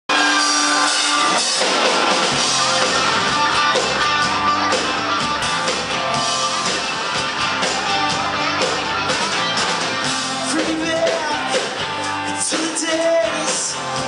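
Rock band playing live: electric guitars and drums, loud, through the venue's PA.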